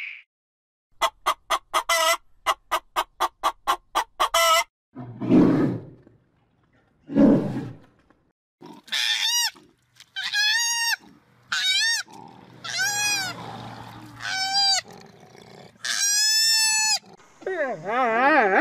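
A run of different animal calls: a quick series of short, sharp pitched calls, then two low grunts, then a string of high calls that rise and fall in pitch, and a wavering call near the end.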